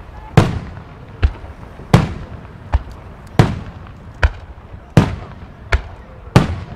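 Aerial firework shells from Nomura Fireworks bursting in quick succession, about nine sharp bangs spaced roughly three-quarters of a second apart, each with a rolling echo. Louder and softer reports alternate.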